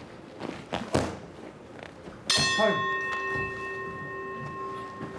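Boxing ring bell struck once to end the round, ringing on and slowly fading. Two thuds come before it.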